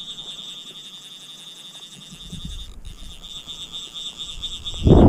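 Fly reel's click drag buzzing as a hooked fish pulls line off, a steady high-pitched ratchet with a brief break near the middle. Wind rumbles on the microphone, growing loud near the end.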